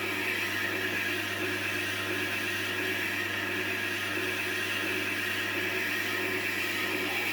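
Tormek T-8 wet grinder running steadily: a constant motor hum under an even hiss of steel being ground on the slowly turning wet stone.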